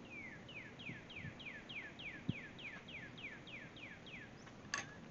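A bird singing a fast run of about fourteen downslurred whistled notes, roughly three a second, stopping about four seconds in. A sharp click follows near the end.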